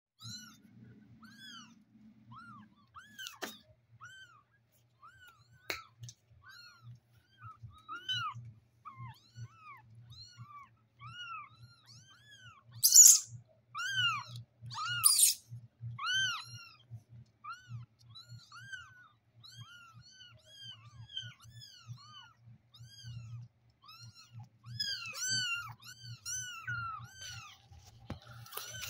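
Young kittens mewing over and over in short high cries that rise and fall in pitch, one or two a second. Two sharper, louder bursts come about halfway through, and a faint low pulsing runs underneath.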